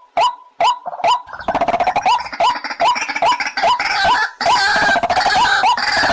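White-breasted waterhen calling: a loud, fast series of short notes, each hooking upward in pitch, about two to three a second. After about a second and a half they thicken into dense, overlapping calling.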